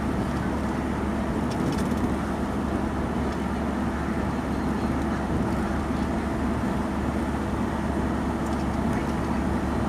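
Steady engine and road noise from a vehicle driving along a road, an even rumble with no breaks.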